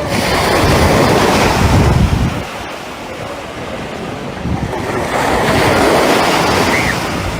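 Sea waves breaking and washing up the beach, two surges of surf a few seconds apart, with wind buffeting the microphone.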